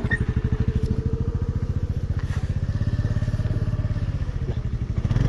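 Motor scooter's single-cylinder engine running at low revs while it is ridden, in a fast, even pulse. Near the end the engine speeds up and grows louder and smoother.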